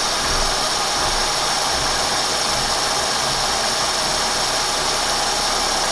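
Kearney & Trecker horizontal milling machine running steadily, its spindle driving a milling cutter through a cut under power feed.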